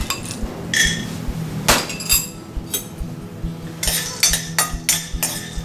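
A metal spoon clinking against a glass bowl as raw peanuts are tipped into a dry wok, then a metal ladle scraping and knocking in the wok as the peanuts are stirred for dry roasting. A quick run of knocks comes near the end.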